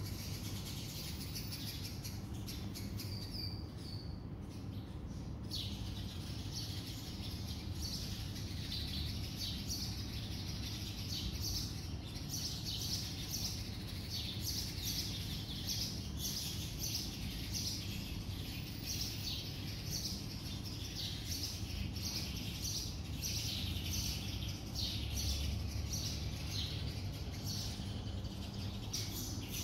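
Many small birds chirping: short high calls overlapping almost without pause, thinning out briefly about four to five seconds in, over a steady low background rumble.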